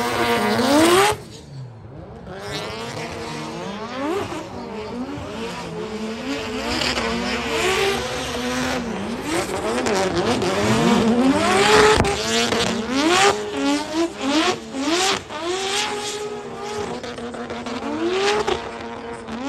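Two drift cars in a tandem run, engines revving hard with the pitch sweeping up and down again and again, over tyre squeal as the rear tyres spin and smoke.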